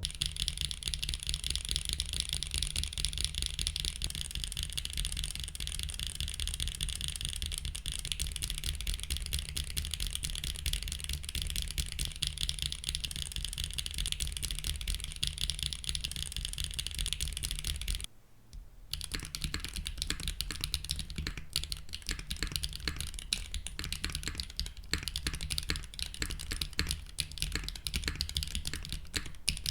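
Fast, continuous typing on a custom mechanical keyboard with lubed 48g Wingtree Camellia linear switches and GMK keycaps, giving a sharp, clacky keystroke sound. About two-thirds of the way through the typing pauses for about a second, then carries on.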